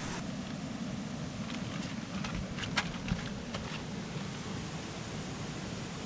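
Steady rushing of a creek flowing close by, with a few faint clicks in the middle.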